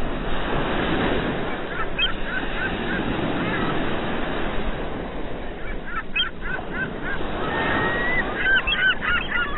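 Surf washing onto a beach, overlaid by quick runs of short, hooked gull calls: a few about two seconds in, a few more around six seconds, and a dense chorus near the end.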